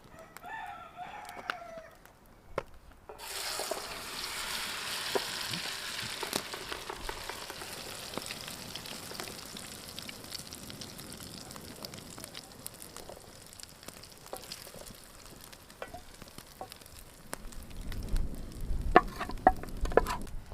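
A rooster crows once, then food goes into hot oil and sizzles: the frying hiss starts suddenly about three seconds in and slowly dies down. Near the end come a few sharp knocks, like a utensil against the pan.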